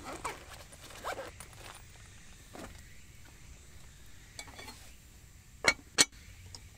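A lid set onto a black metal pot, giving two sharp clinks about a third of a second apart near the end. Before that come a few soft handling knocks and rustles.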